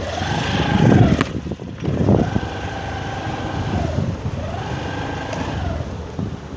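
Motorcycle engine running, revving up, holding and easing off three times.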